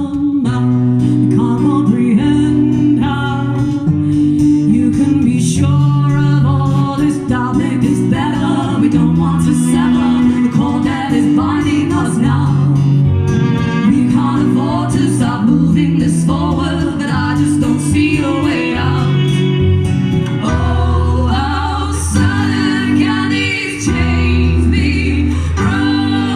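Live band performance of a song: strummed acoustic guitar with sung vocals over it, the low end deepening about twenty seconds in.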